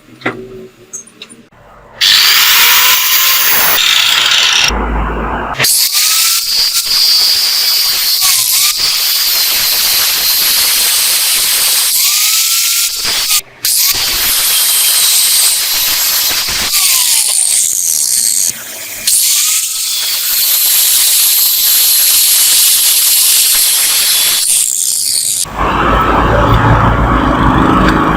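A power tool working metal starts about two seconds in and runs loud and hissing, with a few brief breaks and some rising-and-falling whines. Near the end it stops and a lower rumbling sound takes over.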